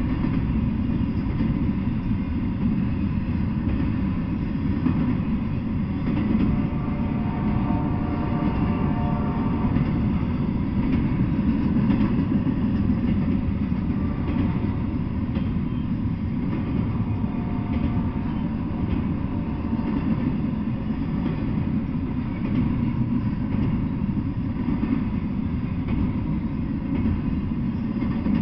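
Double-stack intermodal freight train of well cars rolling past, a steady rumble of wheels on the rails.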